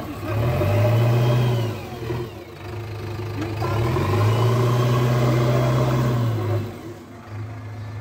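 Diesel engine of a JCB backhoe loader revving up twice under load as it works its bucket and arm, the note rising and holding, then falling back, with a quieter spell near the end.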